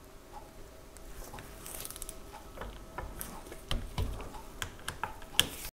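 Ratchet-head torque wrench clicking and tapping on the bolts of a snowblower auger's worm gear case as they are tightened to about 100 inch-pounds in sequence. The clicks come faster and louder, with one sharp click near the end, then the sound cuts off suddenly.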